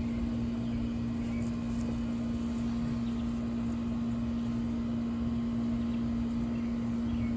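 A steady low machine hum on one unchanging pitch, with a low rumble beneath it and a few faint chirps over it.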